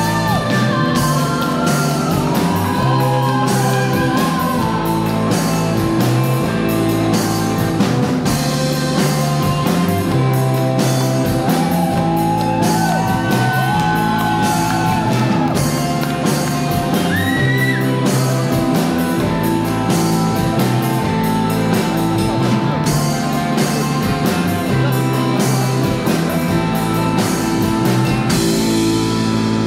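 Indie rock band playing live: a female lead vocal over electric guitars, bass guitar and drums, with a steady beat.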